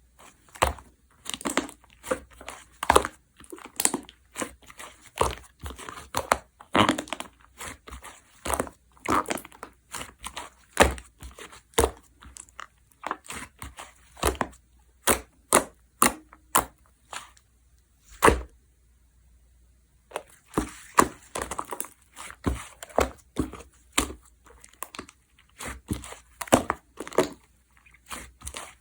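Hands playing with slime, pressing, stretching and poking it to make a string of sharp pops and clicks, about one to two a second, with a pause of about two seconds past the middle.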